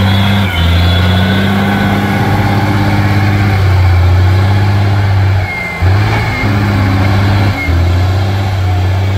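Zetor tractor's diesel engine running hard under load. Its revs change in steps and dip briefly twice in the second half, picking up again each time.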